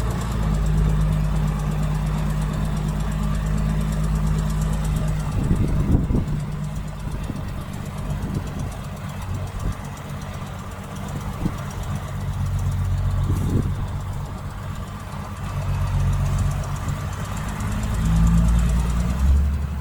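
Diesel engine of heavy earthmoving machinery running, its pitch and loudness rising and falling as the load changes, with a few short knocks about six and thirteen seconds in.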